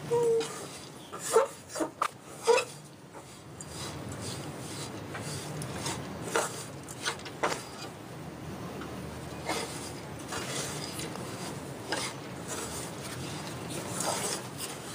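Metal spatula scraping and stirring a sesame-seed mixture around a metal kadhai, with a few sharp clanks against the pan in the first couple of seconds, then steady rasping scrapes.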